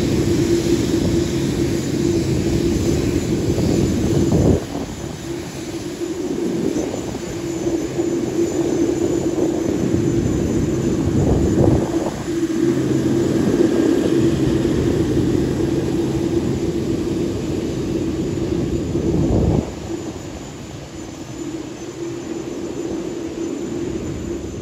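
Jet aircraft on an airport ramp: a steady engine drone with a held tone and a rushing roar. The level drops suddenly a few seconds in and again near the end.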